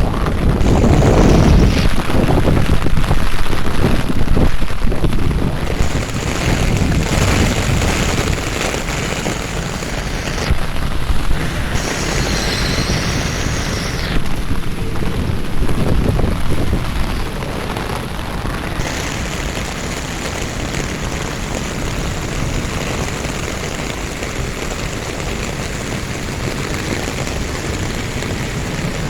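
Steady rain falling, with a deep low rumble that is strongest over the first several seconds and then eases.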